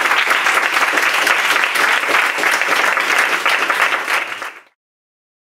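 Small audience applauding steadily, cutting off abruptly about four and a half seconds in.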